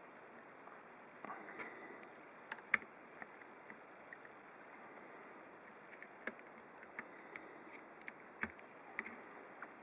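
Faint, irregular small clicks and taps of a soldering iron and tools working at an SMD microswitch on a laptop mainboard, over a low steady hiss, with the sharpest click about three seconds in.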